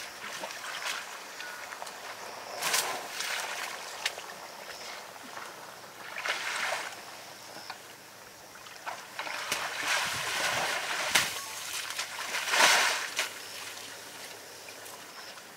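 African elephant pulling and kicking up tufts of grass from waterlogged, muddy ground, giving several short wet rustling, splashing bursts a few seconds apart.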